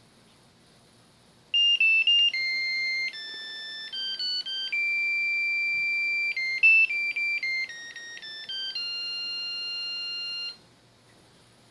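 Zojirushi Super VE electric thermos pot playing an electronic prompt melody through its built-in buzzer: a tune of clear beeping notes, often two at a time, starting about a second and a half in and lasting about nine seconds before stopping.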